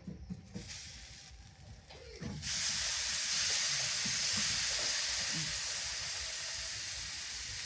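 Meat sizzling on a hot cooking surface, starting abruptly as a loud, steady hiss about two and a half seconds in and easing off slowly.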